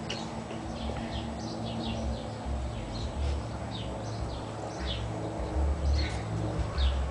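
Small birds chirping, many short high chirps that drop in pitch, over a low uneven rumble.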